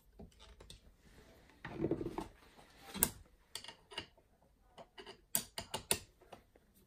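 Small metal clicks and taps from hands working the steel parts of a Schaublin 70 lathe's milling attachment, with a brief scraping slide about two seconds in and a quick run of clicks near the end.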